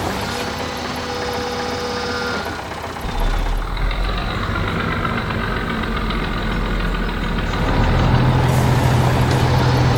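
Cartoon vehicle engine sound effects running steadily, with a louder, deeper engine hum coming in about three-quarters of the way through.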